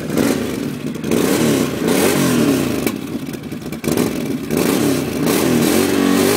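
Can-Am Outlander 800 Max ATV's Rotax V-twin engine revved repeatedly through its stock exhaust, the pitch rising and falling with each blip of the throttle.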